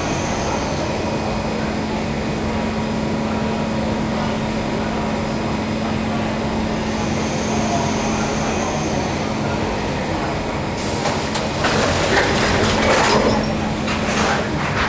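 Steady hum of a Kawasaki C151 metro train standing at a station with its doors open. About eleven seconds in, the doors slide shut with a rush of noise, ending in a few sharp knocks as they close.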